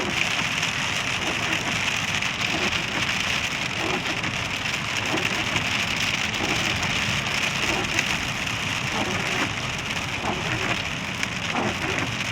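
Heavy rain falling steadily in a thunderstorm, an even hiss with no breaks.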